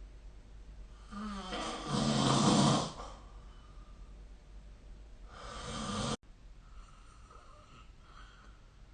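A person snoring: one long snore starting about a second in and lasting about two seconds, then a second snore that grows louder and cuts off abruptly near the six-second mark.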